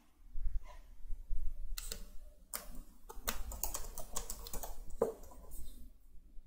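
Typing on a computer keyboard: a quick run of key clicks starting about two seconds in and stopping shortly before the end.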